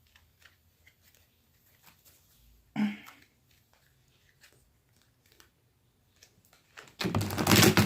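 Tarot cards being handled with scattered light ticks, then shuffled in a loud rustling burst of about a second near the end.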